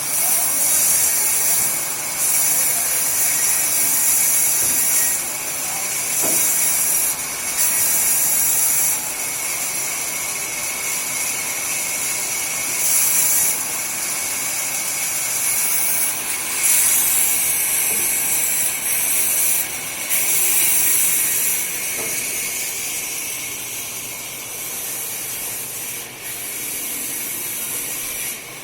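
Sawmill machinery running: a steady hiss with a constant whine, and loud bursts of high hiss that come and go every second or few.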